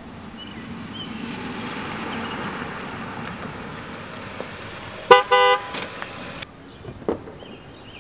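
A silver Ford Fusion drives up, its tyre and engine noise swelling and then easing off. About five seconds in the car horn honks twice, a short toot then a slightly longer one, calling the passenger out.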